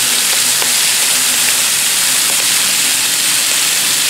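Bacon strips sizzling on a hot Blackstone flat-top griddle: a steady high hiss with a few faint pops.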